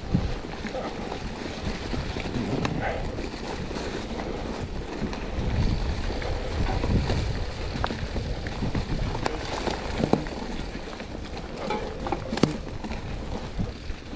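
Mountain bike rolling along a muddy trail covered in dry leaves: a steady rumble of tyres and wind buffeting the microphone, with scattered clicks and knocks from the bike over the bumps.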